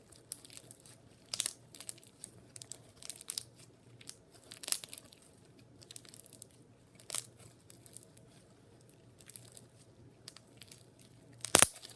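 Crunchy bead-filled slime being squeezed and played with, giving irregular crackles and pops, with one sharper, louder pop near the end.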